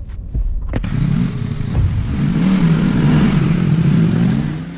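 A motorcycle engine starting with a click about a second in, then running with a low, wavering, slightly rising tone. It cuts off just before the end.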